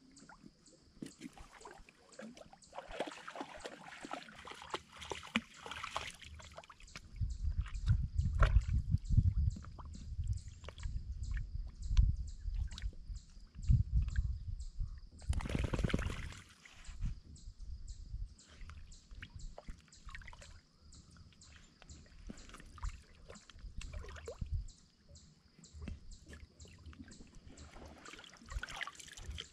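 Shallow lake water splashing and dripping as a caught fish is handled at the surface, with a dog wading close by. There are many small splashes, dull low thumps through the middle, and one louder splash about 15 to 16 seconds in.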